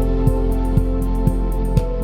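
Soft, calm music: sustained tones held over a steady low hum, with a soft beat about twice a second.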